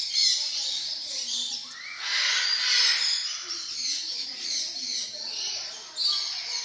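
Several parrots calling at once in a continuous chatter of overlapping shrill calls, loudest about two to three seconds in and again near the end.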